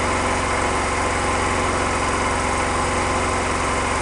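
RIX SA6 oil-free three-stage scuba compressor, driven by a 5 hp single-phase electric motor, running steadily, with a fast, even pulse under a constant mechanical hum.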